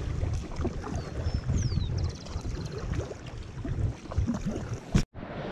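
Kayak paddle strokes dipping and splashing in river water, with wind buffeting the microphone. About five seconds in there is a sharp knock, the sound cuts out, and a steady rush of water follows.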